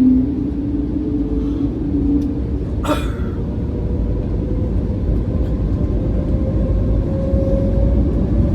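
Airbus A321neo cabin during the takeoff roll: a heavy rumble of the airliner rolling down the runway with the engines at takeoff thrust, and an engine tone that rises slowly. There is a single sharp knock about three seconds in.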